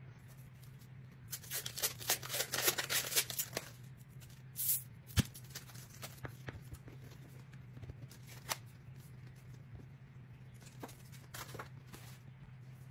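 A can of refrigerated biscuit dough being opened: a run of crackly tearing as the paper wrapper is peeled off, then a single sharp pop about five seconds in as the can bursts open. A few light taps follow as the raw biscuits are set down on a wooden cutting board.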